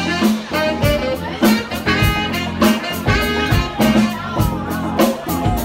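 Live yacht rock band playing: drum kit keeping a steady beat under electric guitar, keyboard and saxophone.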